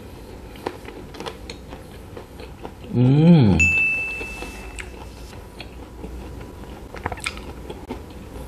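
Biting and chewing an ice cream bar with a crunchy KitKat chocolate coating: small crisp crunching clicks. About three seconds in comes a loud hummed "mmm" that rises and falls, followed by a short high steady beep.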